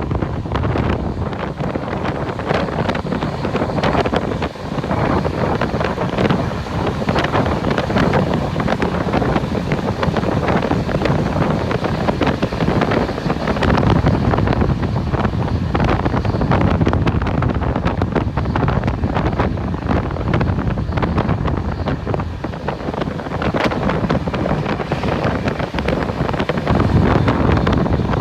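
Wind buffeting the microphone over the steady running noise of a moving train, a dense rushing roar with frequent small knocks.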